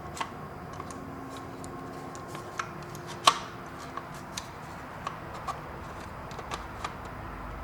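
Scattered small clicks and taps of a headlight switch and its plastic housing being handled and fitted together, the sharpest click a little over three seconds in.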